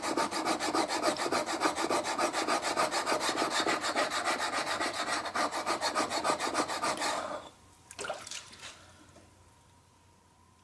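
Steel hand-plane blade being rubbed rapidly back and forth on a sharpening stone, an even run of scraping strokes, grinding the bevel to raise a burr along the edge. The strokes stop about seven seconds in, followed by a couple of lighter scrapes.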